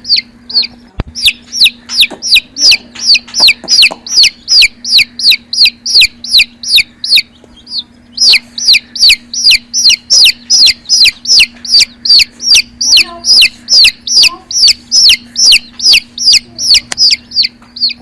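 A baby chick peeping loudly and insistently: a rapid string of short, high peeps, each falling in pitch, about three or four a second, with a brief break about halfway through.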